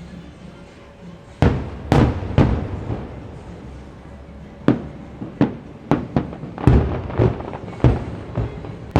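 Distant fireworks bursting over a theme park. There are three sharp booms about a second and a half in, then a quick irregular string of about a dozen bangs through the second half, each with a brief echoing tail.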